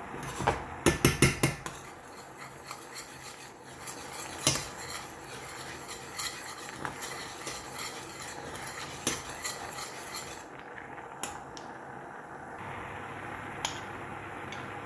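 Kitchen utensils clinking and knocking against pots and dishes: a quick run of about five knocks about a second in, another sharp knock a few seconds later, then scattered lighter clicks over a steady background noise.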